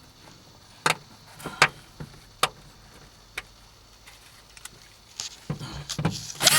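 Sharp clicks and knocks of a screwdriver on plastic interior trim and its retainer clips. A few single clicks come about a second apart, then a busier run of knocking and scraping near the end.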